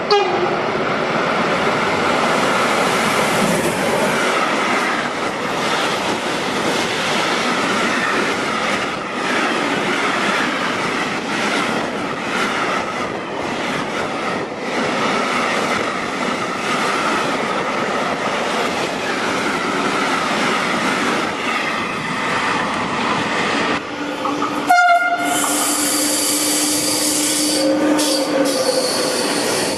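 A freight train passing through a station at speed: a long, steady rush and rattle of wagons on the rails. About 25 seconds in, a second train passes just as close, with a steady low tone and a high squeal held over the rumble for a few seconds.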